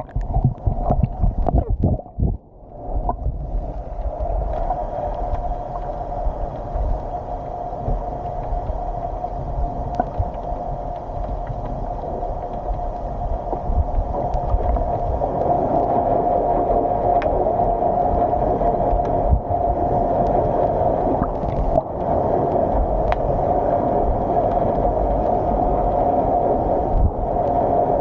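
Boat engine running steadily under way, with water rushing and gurgling along the hull. A few uneven knocks in the first couple of seconds, then an even drone.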